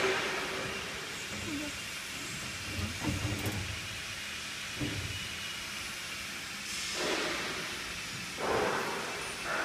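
Fabric inspection machine running with cloth feeding over its rollers: a steady hiss of machine noise, with a few low knocks and two short rushing swells in the second half.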